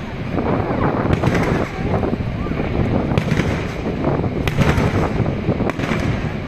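Aerial fireworks bursting in a string of sharp bangs and crackles, several in quick succession, over a steady rumbling background with people's voices.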